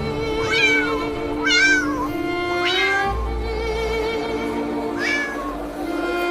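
A cat meows about four times, in short bending calls, over background music with bowed strings.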